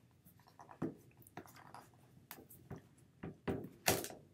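Cardboard GPU retail box being unpacked by hand: the white outer sleeve is slid up and pulled off the inner box, giving a string of short scrapes, rustles and taps. The loudest comes near the end as the sleeve comes free.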